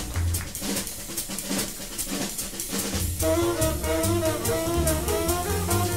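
Live small-group jazz with tenor saxophone, piano, double bass and drums: bass notes and cymbal strokes keep time, and about three seconds in a held, wavering melody line comes in over them.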